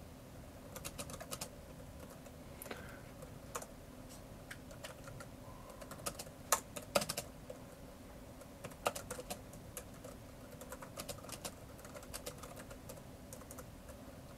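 Typing on a Microsoft Sculpt Ergonomic Keyboard: quiet key clicks in short, irregular runs, with pauses between the runs.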